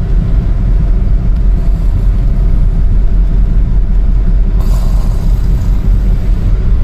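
Honda car's cabin noise while driving at about 40 km/h: a loud, steady low rumble of engine and road, with extra hiss for a couple of seconds after about four and a half seconds in.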